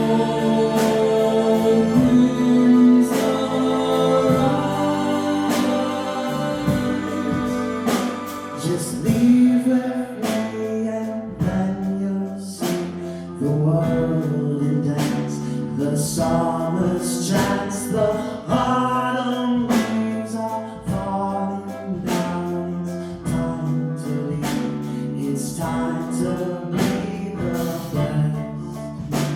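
Live music: singing over strummed and plucked guitar.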